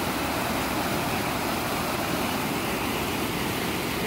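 River water rushing over rock ledges in white-water rapids: a steady, even rush with no breaks.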